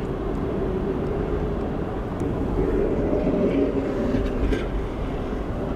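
Car running down the road, heard from inside the cabin: a steady rumble of road and engine noise with a hum that wavers in pitch.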